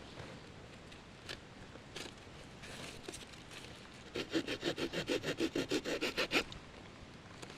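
Small pocket-knife saw blade cutting a tulip poplar branch: a quick run of short, even rasping strokes, about seven a second, lasting roughly two seconds past the middle. A few faint clicks come before it.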